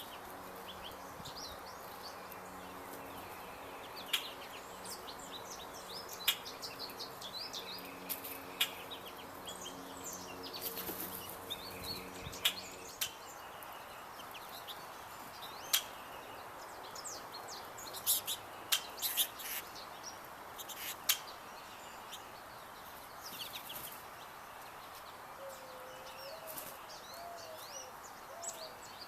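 Small songbirds chirping at a backyard feeder, with short high calls throughout and sharp clicks now and then. A faint steady low hum fades out about halfway through. A low hooting call comes near the end.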